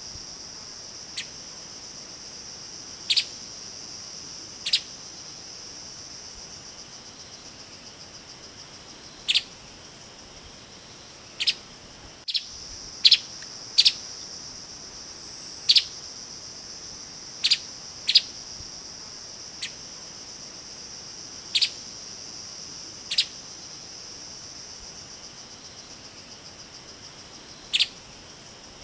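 Streaked spiderhunter giving short, sharp single call notes, some in quick pairs, at irregular gaps of one to a few seconds. A steady high-pitched insect drone runs underneath.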